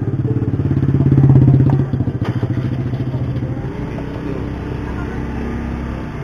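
Motorcycle engine running close by. It grows louder for the first couple of seconds, then drops back to a steadier, quieter run.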